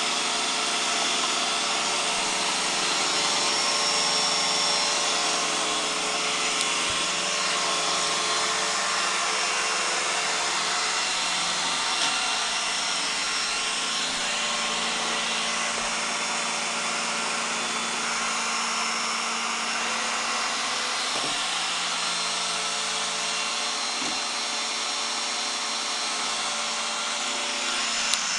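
iRobot Roomba 980 robot vacuum running: a steady whirr from its suction motor and brushes, with a small knock about twelve seconds in.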